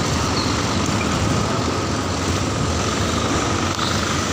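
A heavy engine running steadily, with a constant low hum and general street noise.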